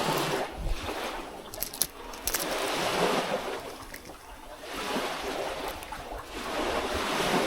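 Small waves washing in at the shoreline, swelling and fading every two to three seconds, with a couple of sharp clicks around two seconds in.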